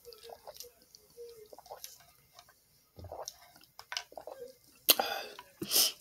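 Sipping a drink through a straw from a plastic tumbler: soft sucking and swallowing mouth sounds, with two short, louder rushes of noise near the end.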